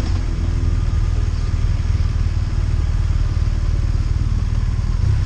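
Touring motorcycle riding at low, steady road speed: a continuous low engine rumble mixed with wind noise on the bike-mounted camera.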